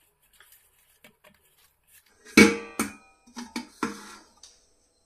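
A few clanks of metal kitchen vessels handled on the counter, the first, about halfway in, the loudest and ringing briefly, followed by several lighter knocks.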